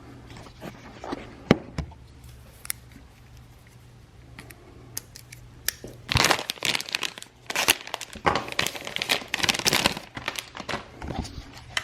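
Plastic packaging being opened by hand: occasional crinkles and clicks at first, then sustained crinkling and tearing of the plastic wrap from about halfway in.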